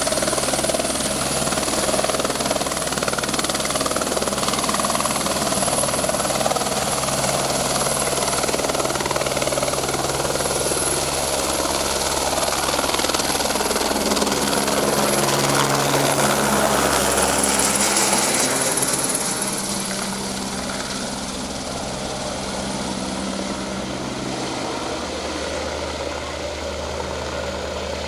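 Helicopter taking off and flying away: rotor and engine running steadily with a high whine, the whole sound dropping in level about two-thirds of the way through as the whine fades out.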